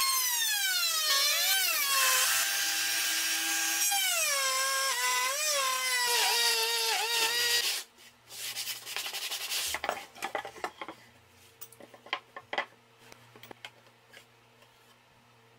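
Handheld trim router with a flat (straight) bit cutting a groove across a wooden panel along a clamped guide. The motor's whine sags in pitch and recovers several times as the bit takes the load, then stops about eight seconds in. Light clicks and knocks of handling follow.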